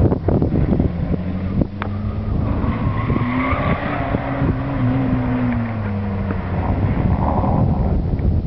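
VW Polo G40's supercharged 1.3-litre four-cylinder engine running hard as the car drives past. Its pitch rises, then falls away in the middle, and the tyres squeal briefly.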